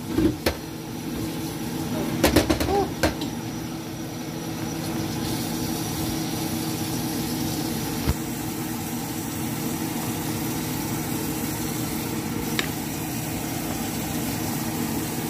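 A steady machine hum with a few low tones held throughout, like a kitchen appliance's motor or fan running. A few sharp clinks come about two to three seconds in, with single ones later.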